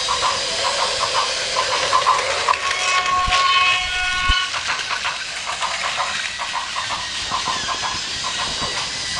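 Battery-powered Plarail toy train running on plastic track, a whirring motor with a rhythmic pulse about three times a second. Partway through, a steady electronic tone sounds for about two seconds, and there are two sharp knocks.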